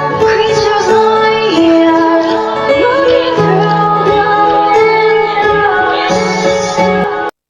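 Pop song with a female lead vocal singing over an instrumental backing, cutting out abruptly for a moment near the end.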